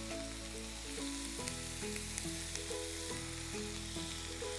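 Chicken pieces sizzling as they fry in ghee and oil in a cast-iron skillet over a gas flame, with soft background music of held chords.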